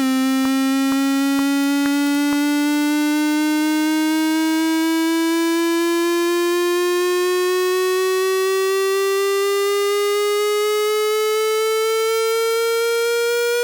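A single held note from the Massive software synthesizer, rich in overtones, its pitch bending slowly and evenly upward toward an octave: a basic pitch-bend 'uplift' riser of the kind used as an EDM transition. A few light clicks tick about twice a second in the first couple of seconds.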